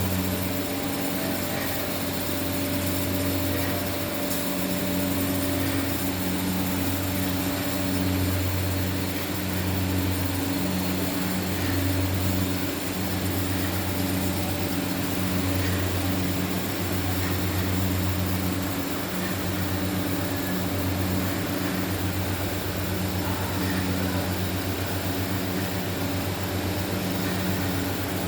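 Automatic mawa kettle with its steam boiler running: a steady low mechanical hum that swells and fades every second or two, over a constant hiss.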